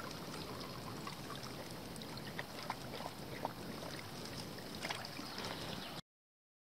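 Faint sloshing and splashing of shallow bog water, with scattered small clicks and ticks. The sound cuts off abruptly about six seconds in.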